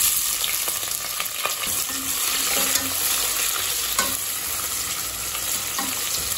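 Freshly added sliced onions frying in hot oil and ghee in a stainless steel pressure cooker, a steady sizzle. A slotted spatula stirs them, knocking against the pot a few times.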